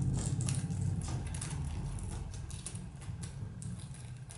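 Light, irregular clicking and tapping from a yellow red-fronted kakariki pecking and nibbling at its food, several clicks a second, over a low steady hum.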